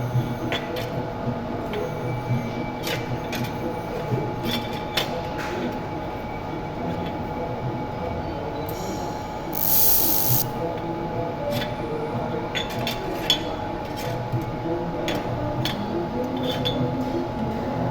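Steady machinery hum with irregular clicks and taps through it, and a short burst of hiss about ten seconds in.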